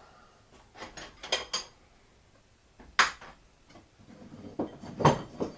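Pieces of metal stock clinking and knocking against each other as they are rummaged through and picked out, a handful of sharp metallic clinks with brief ringing, the loudest about halfway through and a cluster near the end.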